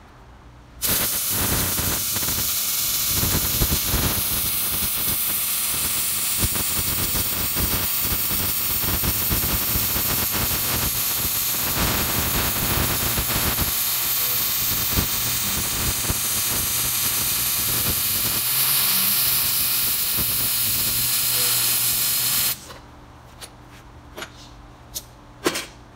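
MIG welder arc crackling and hissing through one long continuous weld on a steel bed mount, starting about a second in and cutting off sharply near the end, followed by a few light clicks.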